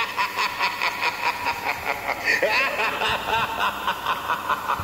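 Rapid rhythmic cackling laughter, a Halloween sound effect, pulsing about four or five times a second with a few rising and falling swoops in the middle.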